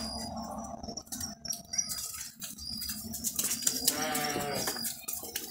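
A sheep bleats once, a wavering call about a second long a little past the middle, over scattered clicks and knocks.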